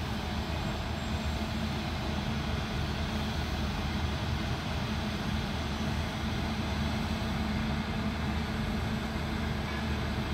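Pair of WAG-9 electric locomotives running under load as they haul a freight train past at low speed: a steady, even low drone with rail rumble.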